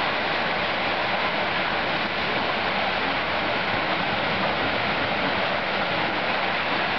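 Whitewater of the Lachine Rapids rushing steadily, a continuous even hiss of turbulent river water and a breaking standing wave.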